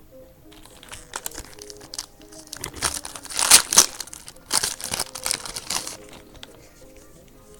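Foil wrapper of a baseball card pack being torn open and crinkled, in irregular crackly bursts that are loudest about three and a half seconds in and die away about six seconds in.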